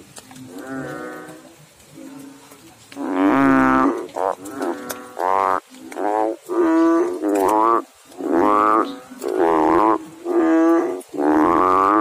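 Banded bullfrogs calling in a chorus: a run of nasal, lowing calls, each about half a second long. The calls are fainter at first, then from about three seconds in come loud and close together, about one a second.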